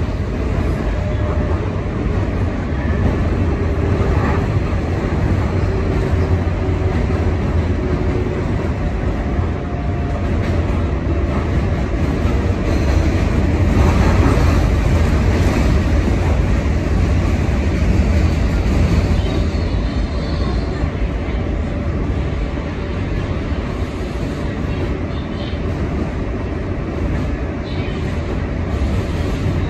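Inside an R142A subway car running between stations: a steady low rumble of wheels on rail, swelling slightly about halfway through.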